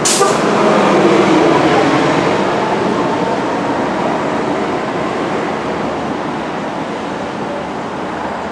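Tornado wind roaring: a loud rushing noise that comes in with a sudden hit and then slowly eases off.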